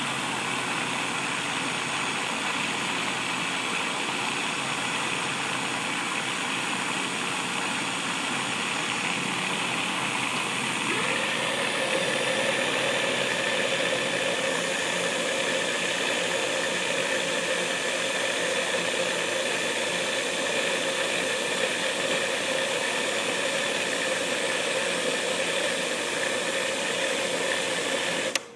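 Electric kitchen blender motor running steadily while grinding peanuts into peanut butter, its blades working the crumbly paste into a creamy one. About eleven seconds in a steadier, higher tone comes into the motor sound. It cuts off near the end.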